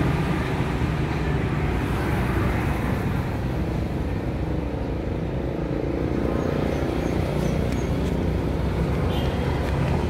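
Steady low engine noise mixed with passing road traffic.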